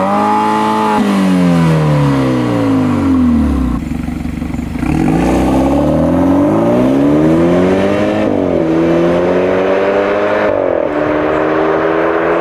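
A BMW 428i xDrive's turbocharged two-litre four-cylinder engine and exhaust. It revs up sharply and the revs fall away. Then it accelerates through the gears, the pitch climbing steadily and dropping suddenly at two upshifts in the second half.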